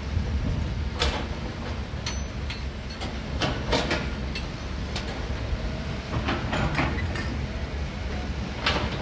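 Heavy construction machinery engine running steadily, with several sharp metallic clanks and knocks at irregular intervals.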